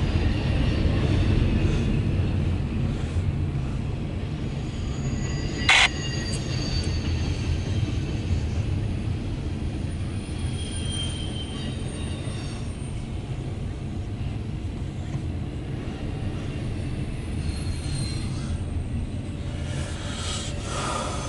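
Double-stack intermodal freight train rolling past: a steady low rumble of wheels on rail, with thin high wheel squeals coming and going. A single sharp click about six seconds in.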